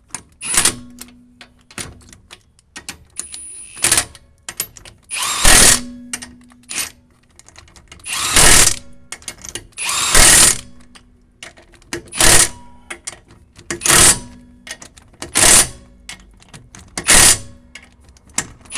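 Impact wrench running lug nuts onto a car wheel in about nine short bursts, a second or two apart.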